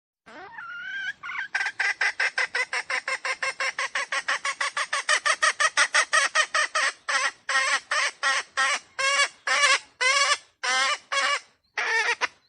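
Red junglefowl (wild chicken) cackling: a fast run of short clucks, about six a second, that slows after about seven seconds into fewer, longer, wavering notes.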